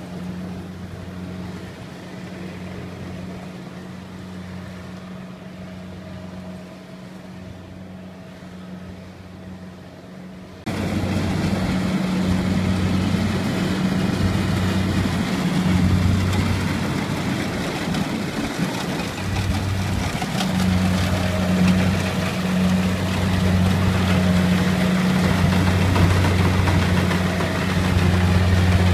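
Rice combine harvester's diesel engine running at a steady, unchanging pitch as it cuts rice. It is fainter at first, then suddenly louder and closer about a third of the way in.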